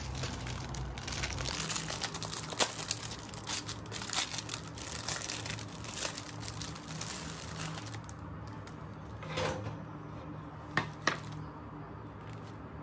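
Plastic cling wrap crinkling as it is peeled by hand off a tray of mushrooms, then a couple of short knocks near the end as a bamboo cutting board is set down on the wooden counter.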